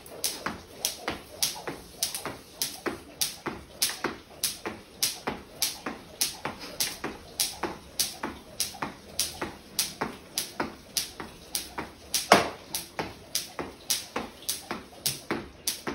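Skipping rope slapping a wooden floor in a steady rhythm, about three times a second, with the jumper's feet landing. One slap about twelve seconds in is louder than the rest.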